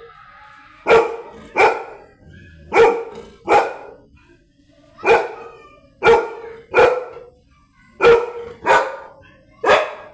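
A dog barking: about ten sharp, loud barks, mostly in pairs, spaced evenly through the whole stretch.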